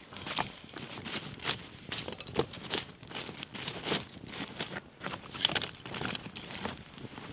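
Wood fire of dry twigs crackling, with irregular sharp snaps several times a second as wood is pushed into the flames.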